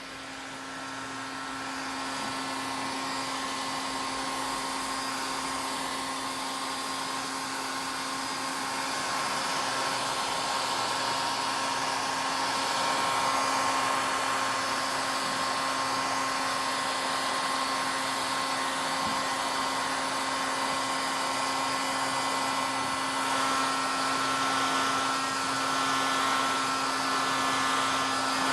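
Heat gun blowing steadily: a fan-driven rush of air over a steady motor hum, growing louder in the first seconds and again partway through, as it is worked over faded plastic.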